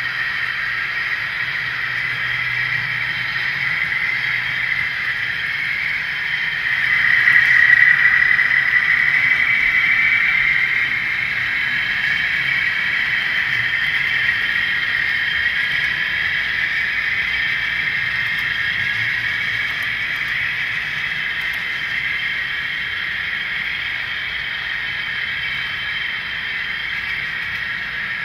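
Model diesel locomotives and train running on the layout's track: a steady whirring hiss of the motors and wheels on the rails. It swells about a third of the way in as the locomotives pass close by, then settles back.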